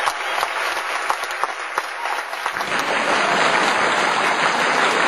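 Audience applauding, with many separate claps; the applause swells, growing louder and denser about two and a half seconds in.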